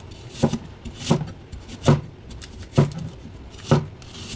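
Knife chopping an apple on a cutting board: five slow, evenly spaced chops, about one a second.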